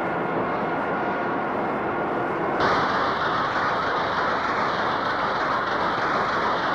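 Woollen mill machinery running steadily, a carding machine at first. About two and a half seconds in the noise changes abruptly to a louder, brighter machine sound.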